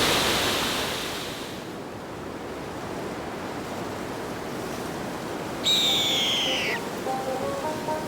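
Rushing water of a waterfall, fading down over the first couple of seconds to a quieter steady hiss. About six seconds in, background music begins with a falling, whistle-like swoop and a light melody.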